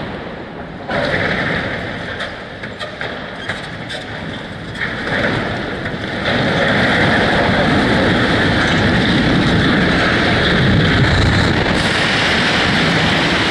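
A 451-foot reinforced concrete chimney collapsing after its explosive felling charges have fired. Scattered cracks and clattering debris come over a rumble for the first few seconds, then a steady, louder rumble from about six seconds in as the chimney comes down and the dust cloud rolls over, with wind buffeting the microphone.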